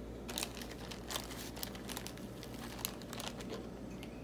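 Plastic zip-top deli bag crinkling in irregular crackles as sliced ham is pulled out of it by hand.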